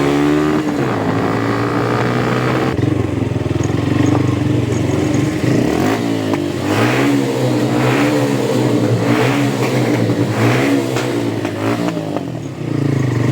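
Motorcycle engine running under way, its pitch steady at first and then rising and falling several times as the throttle is opened and closed through the gears.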